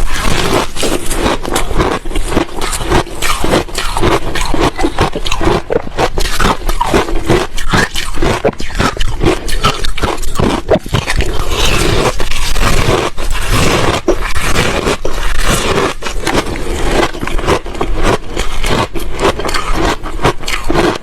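Ice being bitten and chewed close to the microphone: a loud, dense, continuous run of crunches and cracks.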